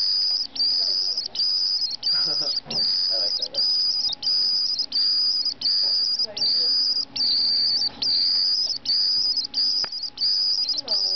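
White-throated Swift calling, a high, shrill call repeated in a steady series of about two a second with short breaks between. These are begging calls: the bird is not being fed.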